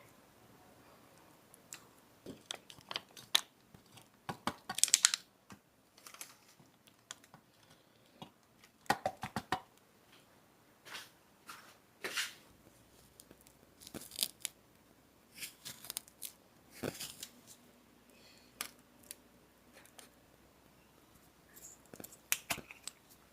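Small handling sounds at close range: scattered light clicks and knocks with several short tearing or crinkling rustles, the loudest about five and nine seconds in.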